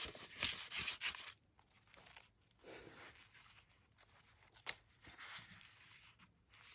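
Paper rustling and crinkling as the pages and cards of a handmade paper journal are handled and turned, loudest in the first second or so, with a sharp tick partway through.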